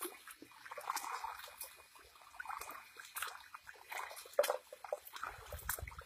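Irregular splashing and sloshing of muddy water as a water buffalo drags a wooden harrow through a flooded paddy field, its hooves and the harrow churning the mud.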